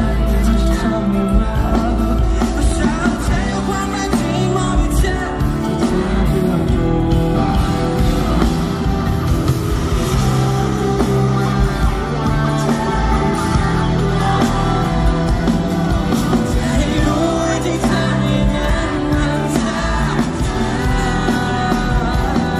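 Live rock-pop band music: a male singer's voice over electric guitar and a full band, loud and continuous.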